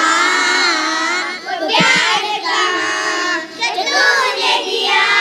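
A group of young children singing a song together in unison, one child's voice close on a handheld microphone.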